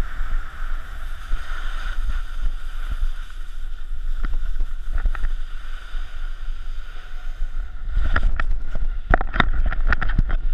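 Snowboard sliding over packed snow, a steady rushing hiss with wind rumble on the microphone. From about eight seconds in, a quick run of sharp clicks and scrapes.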